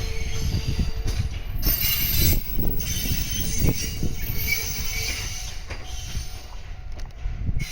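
An E231-series train hauled by an EF81 electric locomotive passing on the rails: a continuous wheel rumble with a high wheel squeal and a few sharp knocks.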